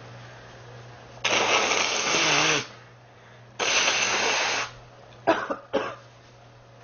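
A girl sick with an illness coughing: two long, harsh coughing spells, the first trailing into a voiced rasp, then two short sharp coughs about five seconds in.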